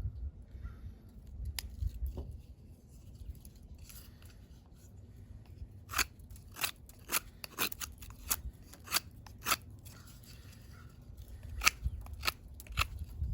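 A Victorinox Fieldmaster Swiss Army knife cutting into dry, well-degraded wood to take humps off the underside of a fireboard: a string of short, sharp cutting strokes, sparse at first, bunching up from about six seconds in and again near the end.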